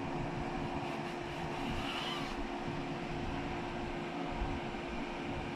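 E.402B electric locomotive hauling a train past at a distance: a steady rumble with a steady hum. A brief faint high squeal comes about two seconds in.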